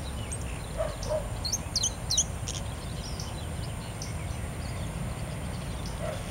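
Buffy hummingbird singing: a scattered series of thin, high, squeaky notes, with a busier run of quick up-and-down sweeping notes about one and a half to two seconds in.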